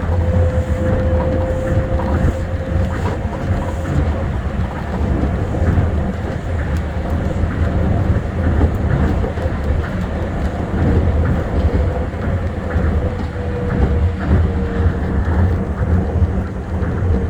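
Tokyo Monorail 1000-series train running steadily along the line: a continuous low rumble with a faint steady whine.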